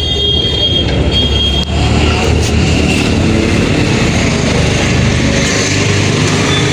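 A vehicle engine running with a steady low rumble, and a faint high whine near the start and again near the end.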